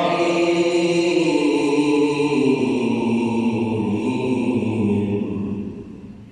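A male Quran reciter chanting in melodic tajweed style. He holds one long, drawn-out phrase whose pitch steps downward, then fades away near the end as the verse closes.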